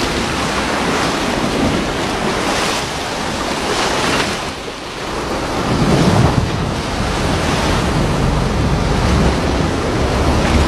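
Sea water splashing and churning in repeated surges, with wind buffeting the microphone; a heavier low wind rumble sets in about six seconds in.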